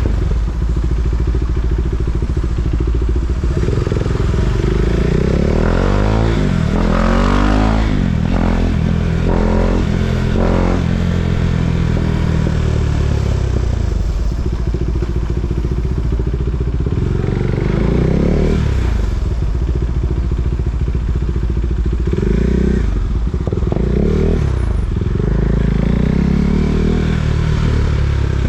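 KTM 390 Duke's single-cylinder engine being ridden, its pitch rising as it accelerates and falling as it eases off, several times over.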